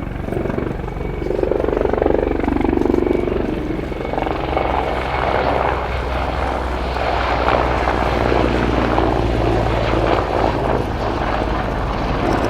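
Mil Mi-24V Hind attack helicopter flying a display, its five-blade main rotor and twin turboshaft engines making a loud, steady low drone.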